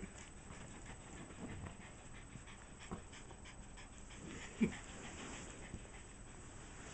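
Small terrier panting, out of breath from play. One short louder sound comes about four and a half seconds in.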